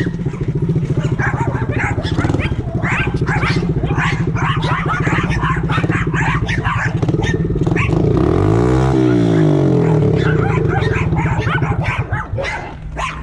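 Small dirt bike engine running steadily, its pitch rising and falling once about eight seconds in and dropping away near the end, with several dogs barking and yipping around it.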